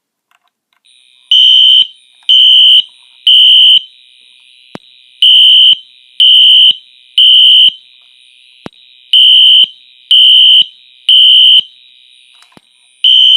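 Wheelock NS horn-strobe fire alarm sounding loudly in a temporal-three evacuation pattern: three high-pitched beeps, a pause, then three more, repeating, with a fourth group starting near the end. A faint tick comes about once a second between the beeps.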